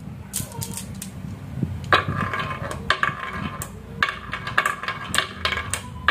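Glass marbles clicking and clinking against one another in a handful and being set down in a wooden track groove: a few separate clicks at first, then a quick run of ringing clinks from about two seconds in. A low steady hum runs underneath.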